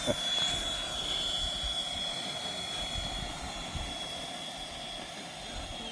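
RC model Fouga Magister jet with an electric ducted fan, flying: a steady high whine over a rushing of air, slowly fading as it moves away.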